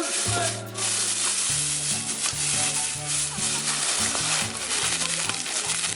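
Food sizzling steadily as it fries.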